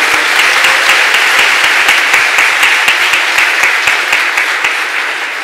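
Audience applauding, dense clapping that fades out near the end.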